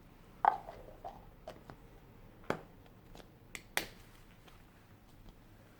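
A series of about seven close-miked ASMR clicks and pops, spaced irregularly. The loudest comes about half a second in and has a short pitched pop to it.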